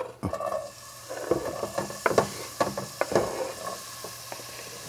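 Chopped onion sizzling in hot cooking oil in a pan, with a utensil stirring and knocking against the pan several times.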